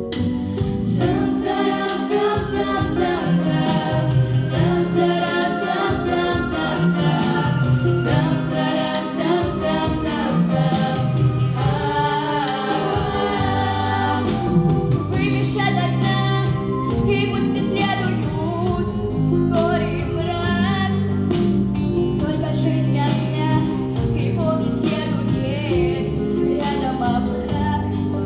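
A trio of girls' voices singing a song together over instrumental accompaniment.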